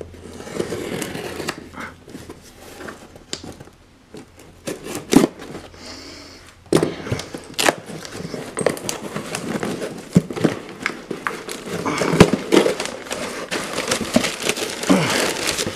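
A cardboard shipping box being opened by hand: packing tape slit with a small blade and peeled off, then the flaps pulled open and the paper and plastic wrapping inside rustled and crinkled. The rustling and crinkling grow louder from about seven seconds in.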